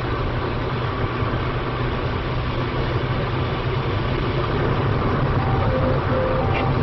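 Steady engine drone and road noise of a police vehicle cruising on a motorway at about 130 km/h.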